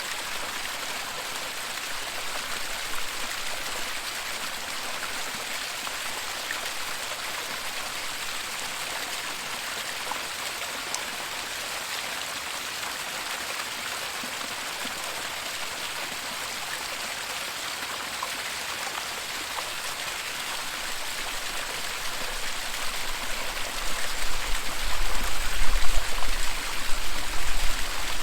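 Steady rush of a waterfall, an even hiss of falling water. In the last several seconds a low, uneven rumble builds underneath and the overall sound grows louder.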